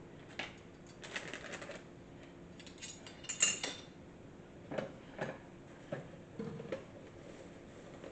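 Cookie cutters clinking and clattering against each other and the counter as they are handled and dried, with the sharpest clink about three and a half seconds in.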